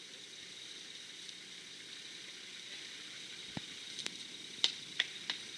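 Outdoor tropical forest ambience: a steady high-pitched hiss, with several short, sharp chirps in the last two seconds.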